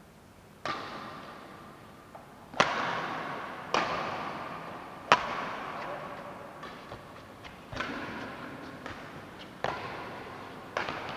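Badminton racket strikes on a shuttlecock during a rally: about seven sharp cracks spaced one to two and a half seconds apart, each followed by a ringing echo off the hall, the loudest a few seconds in.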